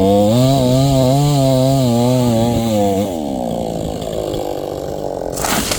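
Chainsaw engine held at high revs for about three seconds, then easing off to a lower, rougher running note. A short noisy burst comes near the end.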